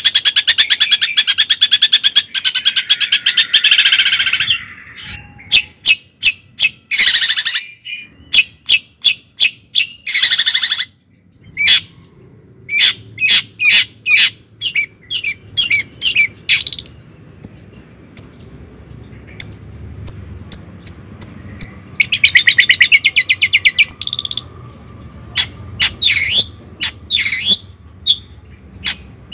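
A bird chirping close by. There is a fast trill at the start and another about three-quarters of the way through, with runs of short, sharp chirps between them.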